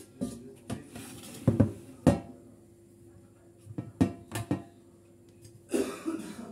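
Air fryer drawer pulled out and handled: a series of hard clunks and knocks as the drawer and its pot are moved and set down, then a brief scraping rustle near the end.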